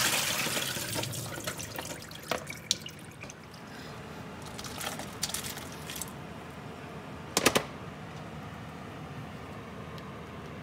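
Water pouring out of a bowl through a plastic colander into a stainless steel sink as rinsed cut potatoes are drained, loud at first and fading away over about three seconds. Scattered light clicks follow, then a brief sharp clatter a little past seven seconds in.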